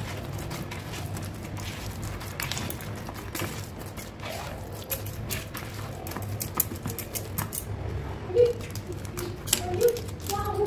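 Steel spoon clicking and scraping against a bowl while stirring thick semolina batter with chopped onion: many quick, irregular ticks over a low hum.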